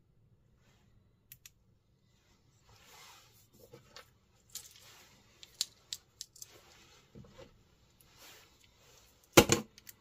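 A small metal flashlight being handled: a couple of light clicks, then rubbing and scattered sharp clicks, with one loud clack near the end.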